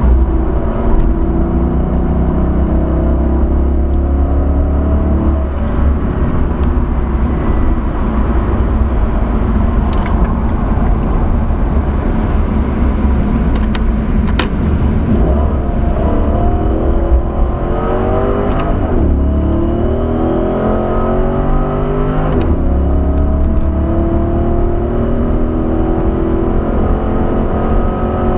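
Dodge Charger's V8 engine heard from inside the car at speed on track: it eases off for a slow corner around the middle, then pulls hard again, its pitch rising in repeated sweeps through several upshifts in the second half.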